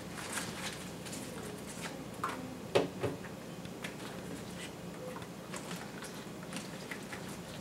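Light ticks, taps and patter of wet Egyptian onion stalks being handled and shaken over a stainless steel sink, with two louder knocks close together about three seconds in.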